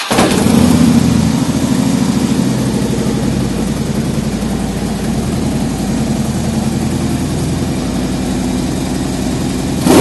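2008 Harley-Davidson Street Glide's Twin Cam 96 V-twin running steadily at idle, heard through Stage 1–tuned Vance & Hines Monster Oval slip-on mufflers.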